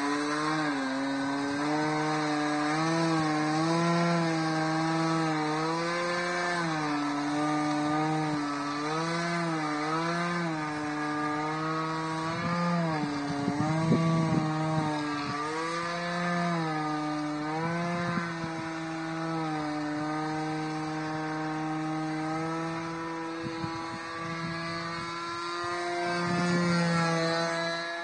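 Radio-controlled aerobatic model airplane's engine buzzing overhead, its pitch swinging up and down again and again as the plane manoeuvres, then holding steady over the last few seconds.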